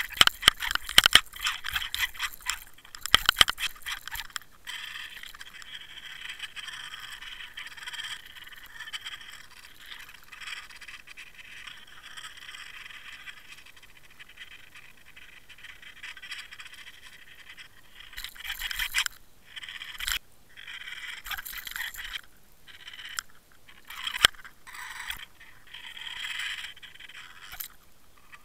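Water rush and scraping picked up inside a Water Wolf underwater line camera towed behind a lure. There are loud crackling knocks in the first few seconds as a trout takes the lure, then a steady hiss broken by scattered clicks and rushes while the hooked fish pulls on the line.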